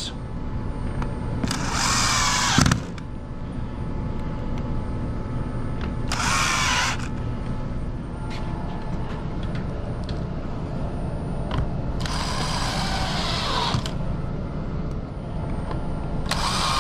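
Cordless DeWalt drill/driver driving wood screws through pre-drilled, countersunk holes in a board into particle board. It runs in four short bursts of a second or so each, several seconds apart.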